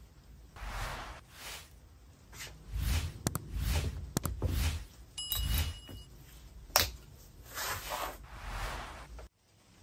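The two steel halves of a sand-casting flask are handled and set together on a metal bench: several sliding scrapes and knocks of steel on steel, with one sharp metal clack about seven seconds in.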